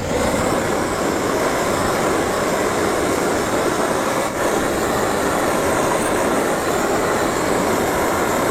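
Gas torch flame burning steadily with an even rushing noise, heating the aluminium alloy wheel to soften the bent section for straightening.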